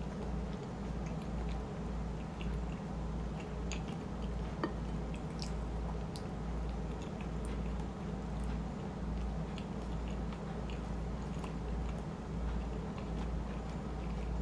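Close-miked chewing of shrimp chili with rice, in a steady, even rhythm with soft wet squishing and small clicks. A single sharp click comes about four and a half seconds in.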